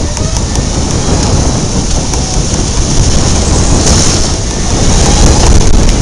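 Go-kart under way through turns, heard from a camera strapped to the kart: a loud, steady rush of rumble and vibration with a hiss over it.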